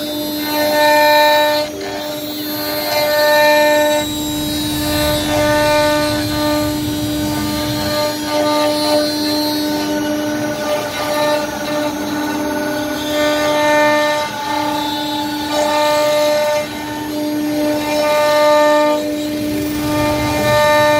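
CNC router running: a steady whine, with higher tones that come and go every second or two as the machine works through its cut.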